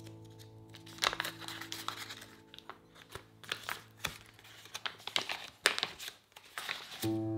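Paper wrapper on a block of butter crinkling and rustling as it is peeled open by hand. Soft background music fades out early on and comes back loudly near the end.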